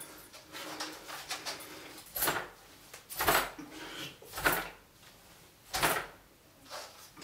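Handling noise from a replica assault rifle and its sling being moved and adjusted: several short rustles and clicks, about one a second.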